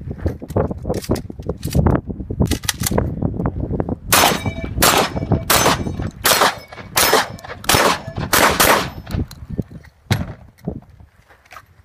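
Gunfire: a rapid string of about eight shots, a little under a second apart, between about four and nine seconds in, with a ringing tone after some of them from hit steel targets. Fainter clicks and knocks come before the string and a lone shot follows it.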